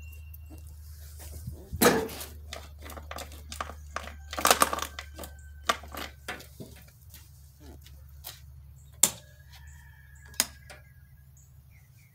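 Irregular clicks and knocks of metal tools and parts being handled while working on a riding mower engine, over a steady low hum.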